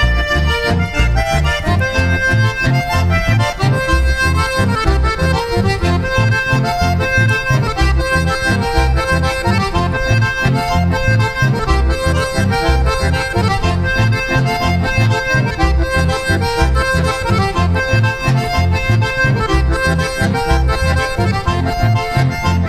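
Accordion-led chamamé played as an instrumental passage with no singing: held accordion chords over a steady beat in the bass.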